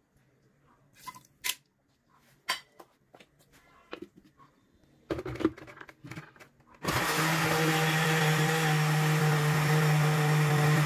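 A few scattered clicks and knocks as the glass blender jar is handled and set up, then about seven seconds in a Fujika countertop blender's motor starts suddenly and runs steadily with a constant hum, puréeing rice congee.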